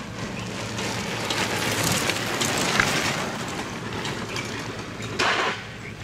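Bicycle going by with a dense, crackling clatter of small clicks that swells in the middle, and a short louder burst near the end.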